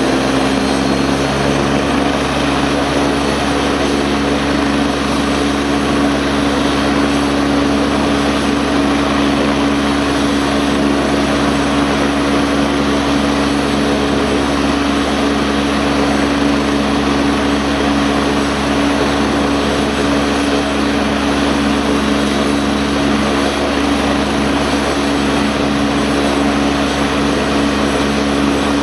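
AgustaWestland A109 twin-turbine helicopter running on the ground with its rotors turning, a loud, steady turbine and rotor drone that holds an even pitch throughout.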